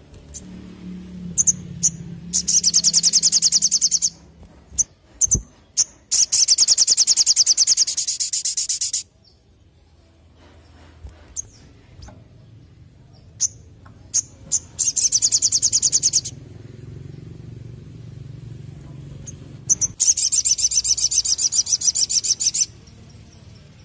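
Sogon sunbird singing: four fast, high-pitched trills of one and a half to three seconds each, with single sharp chips between them.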